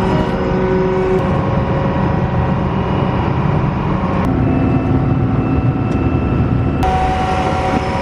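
Large farm machinery running steadily under power, a heavy engine hum with whining tones. The pitch and mix change abruptly twice, about four and seven seconds in.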